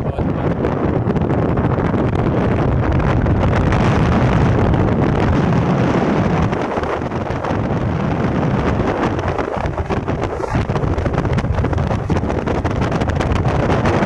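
Speedboat under way at speed: steady wind buffeting the microphone over the outboard engine and rushing water.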